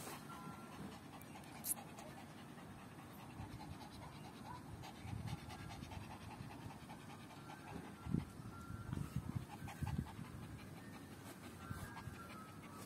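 A dog panting fast and steadily, with a few dull low bumps about two-thirds of the way through.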